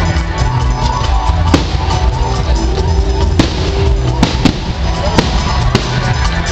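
Aerial fireworks going off in about seven sharp bangs at irregular intervals, over loud live band music with a heavy bass line from the stage.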